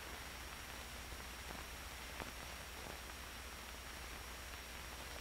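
Steady hiss and low hum of an old film soundtrack, with a faint high whine and a few faint clicks.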